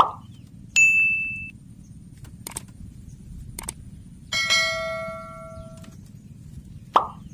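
Metallic ringing: a short high ding about a second in, then a longer clang with several tones that fades out. Short plopping pops come at the start and near the end.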